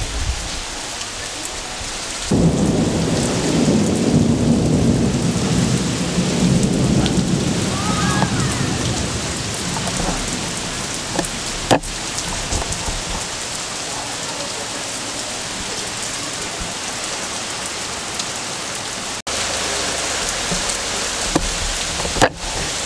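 Heavy rain falling steadily on wet paving and the sea, with a low roll of thunder that breaks in suddenly about two seconds in and dies away over several seconds.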